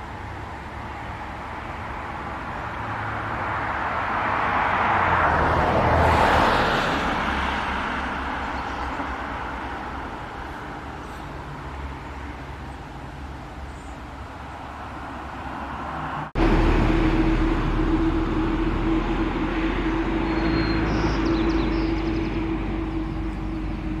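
Road traffic noise: a passing vehicle swells to its loudest about six seconds in and then fades. After a sudden cut about sixteen seconds in, there is a steady low rumble with a constant hum.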